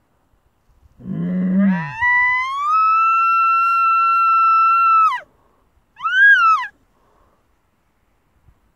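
Elk bugle call blown close by: a low grunt that glides up into a long high whistle, held for about two seconds and then dropping off, followed by one short note that rises and falls.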